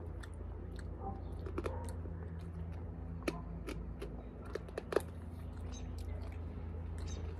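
Someone chewing food, with scattered sharp clicks, over a steady low hum.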